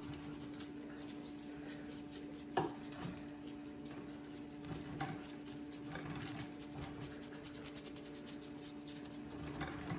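Chip brush dry-brushing acrylic latex paint onto a concrete statue: a faint, scratchy rubbing of stiff bristles over rough concrete, with a couple of light knocks, over a steady background hum.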